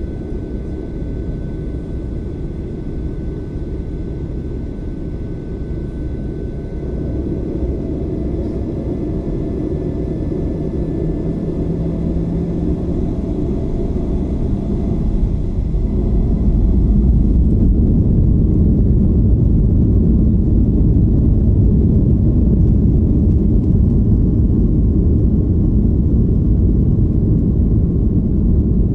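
Boeing 737-800 cabin noise: the CFM56-7B engines run steadily as the jet taxis. About halfway through they spool up to takeoff power, and the low rumble grows much louder and holds steady as the takeoff roll begins.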